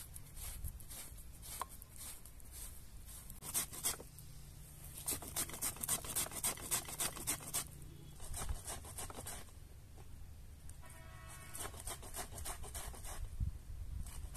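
Quick, rhythmic scraping strokes of a kitchen utensil working cooked potatoes, in several bursts with short pauses between them.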